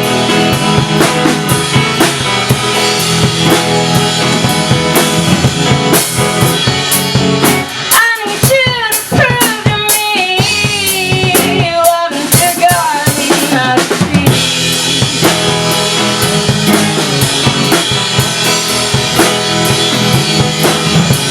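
Instrumental break of a guitar-and-drums duo: a full drum kit with bass drum, snare and rimshots driving under guitar, with sliding, bending notes near the middle.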